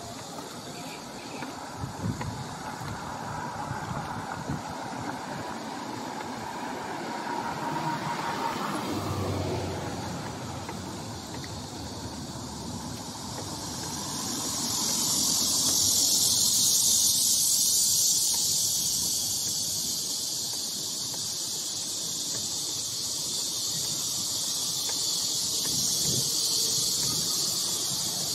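Low road and traffic noise. About halfway through, a loud, steady, high-pitched buzzing chorus of cicadas in the roadside trees swells up and carries on.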